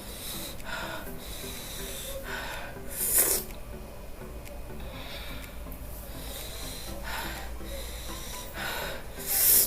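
A woman's sharp, hissing breaths and sniffs as she reacts to the burn of raw chillies, about six of them, the loudest about three seconds in and at the very end, over quiet background music.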